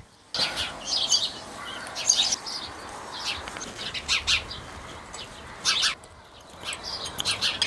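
Ratchet wrench working the bolts on a walk-behind tractor's gearbox housing: short bursts of metal clicking, a cluster every second or so.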